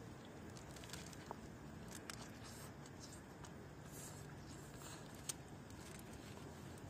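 Faint crinkling and small clicks of an aluminium-foil wrapper being handled while a wrapped sandwich is bitten and chewed.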